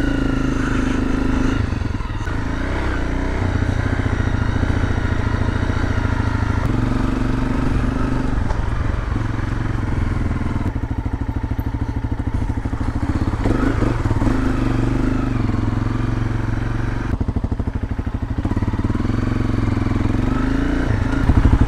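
Honda CRF250L dirt bike's single-cylinder four-stroke engine running at low speed, the revs rising and falling every few seconds.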